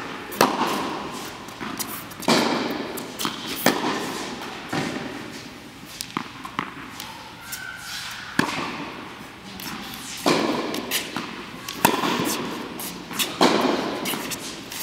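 A tennis rally: racket strings striking the ball, with the ball bouncing on a hard court in between. One of the rackets is an Angell TC95 strung with polyester. Sharp pops come every one and a half to two seconds, each ringing on in the big hall's echo.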